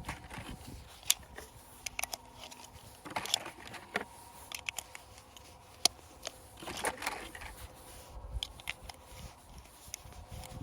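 9mm cartridges being pushed one at a time into a Glock 48 magazine, each making a sharp click as it snaps under the feed lips, irregularly spaced, against a tight brand-new magazine spring.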